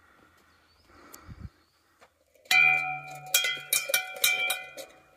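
A hanging red metal summit bell rung by hand several times from about halfway in, each stroke clanging and its tone ringing on between strokes. Ringing it marks reaching the highest point of the trail. Before that, faint rustling steps.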